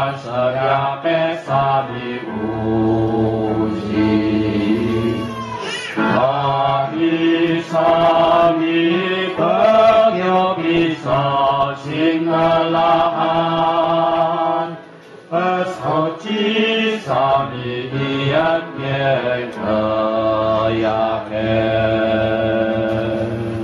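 A congregation singing a Catholic Mass chant in the Atayal language, in long held notes, with a short break between phrases about fifteen seconds in.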